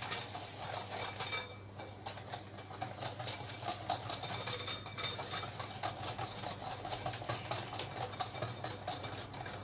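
A wire whisk beating egg and sugar in a cut-glass bowl, its wires clicking rapidly and rhythmically against the glass.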